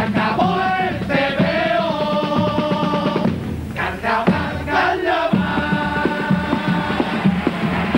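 A group of voices singing a chorus together over a fast, even rhythmic accompaniment, in the style of a Cádiz carnival group. The singing breaks off briefly a little past three seconds in, then comes back with a strong accent.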